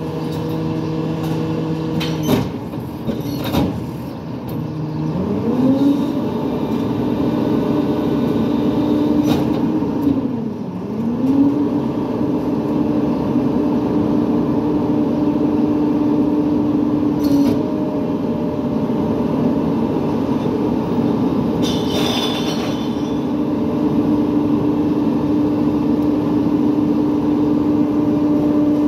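International rear-loader garbage truck with a New Way body: the diesel engine revs up and holds at raised speed while the hydraulic packer cycles. A few sharp metal clanks come from the body, the loudest a little past the middle.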